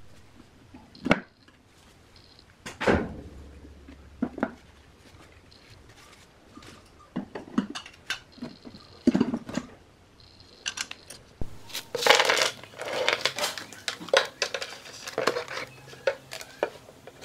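Small metal parts clicking and clinking against each other and on a wooden workbench: an aluminium heatsink and loose metal-can power transistors being handled and set down. Single knocks at first, then a dense run of quick clinks in the second half.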